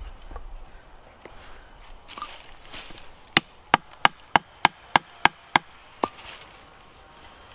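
Wooden baton striking the spine of a knife laid across a stick, batoning the blade into the wood: a run of about eight sharp knocks at roughly three a second starting about three and a half seconds in, then one more.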